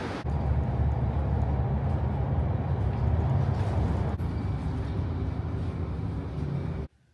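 Interior of a moving city bus: a steady low rumble from the bus driving, which cuts off abruptly near the end.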